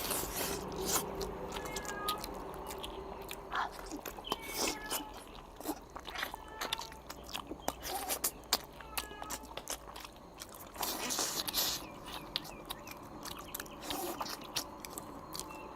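Close-up eating sounds: a person biting and chewing braised pig's trotter, with many short wet smacks and clicks of the mouth.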